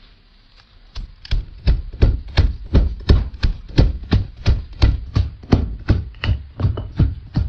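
Steady chopping on a board, about three heavy strokes a second, starting about a second in.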